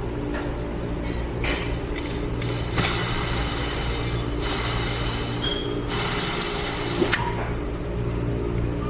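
Compressed shop air blown into an 8L90 automatic transmission's fluid passages: three hissing blasts of about a second each, starting about three seconds in, over a steady low hum, as the clutch circuits are air-checked for leaks and bleed-over.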